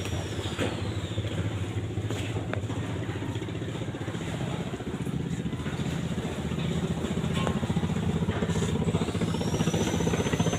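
An engine running steadily with a fast, even pulse, growing louder in the second half.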